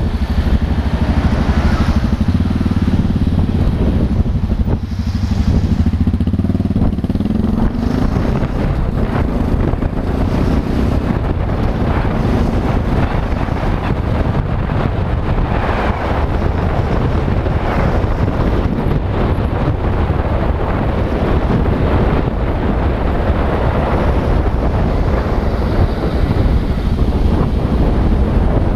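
Motorcycle engine running steadily at road speed, heard from the bike itself, with constant wind and road rush on the onboard microphone.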